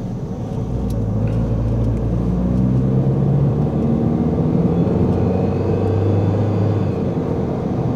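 A car driving, heard from inside its cabin: a steady engine hum over road noise, the engine note shifting a little in pitch as speed changes.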